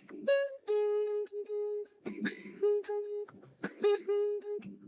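Opening of a song put through RVC AI voice conversion: a run of long held notes at one pitch, broken by short gaps and brief clicks, before the sung lyrics begin.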